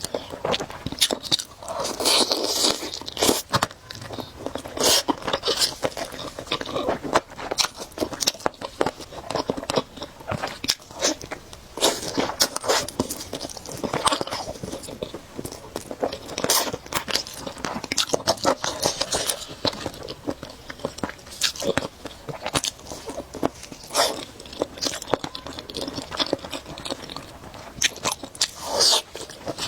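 A person chewing and biting food, close to the microphone: many short, irregular clicks and crunches, one after another.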